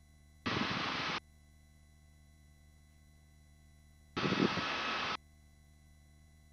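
Helicopter intercom feed: a faint steady electronic hum, broken twice, about half a second in and about four seconds in, by a short burst of hiss under a second long. Each burst starts and cuts off abruptly, the sign of the pilot's voice-activated headset mic briefly opening and passing cabin noise.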